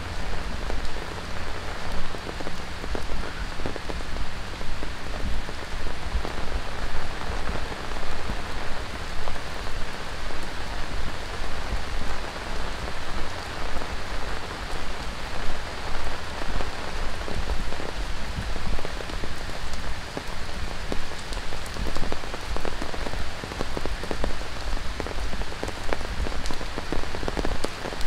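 Heavy tropical monsoon rain pouring steadily, a dense hiss of drops with many small close patters.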